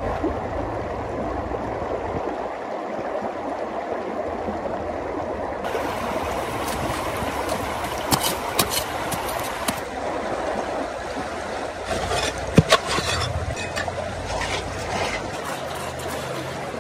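Rushing stream water, with sharp knocks of a hand pick striking rock: a few quick strikes about eight seconds in and two loud ones around twelve and a half seconds.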